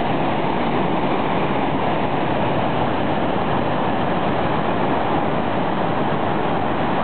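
Iguaçu Falls at close range: a loud, steady rush of falling water that never lets up.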